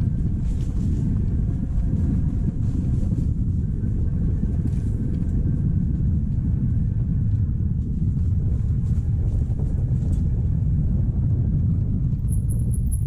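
Gogoro electric scooter ridden over a rough dirt trail: a dense, steady low rumble from the bumpy ground, with a faint motor whine that comes and goes.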